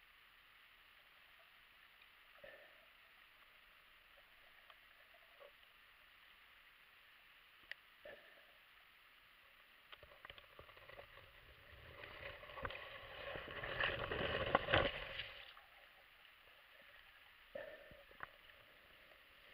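Underwater sound picked up by an action camera in its waterproof housing: a faint steady hiss with scattered clicks and knocks, and a louder crackling, rushing stretch of about three seconds partway through.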